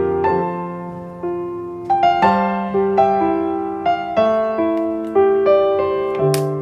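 Background piano music: a gentle melody of single struck notes, each fading after it is played.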